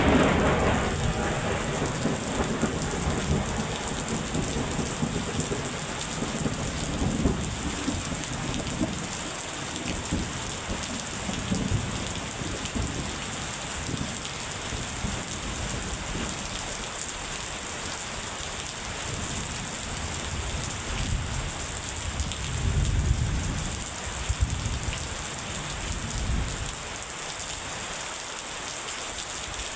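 Steady rain with rolling thunder. A thunderclap fades away over the first couple of seconds, low rumbles come and go, and a longer roll of thunder comes past the two-thirds mark.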